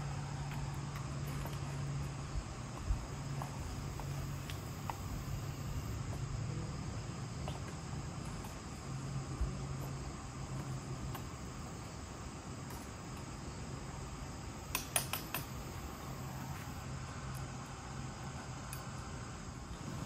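A steady chorus of insects trilling, with a low hum coming and going over the first fifteen seconds and a quick run of light clicks about fifteen seconds in.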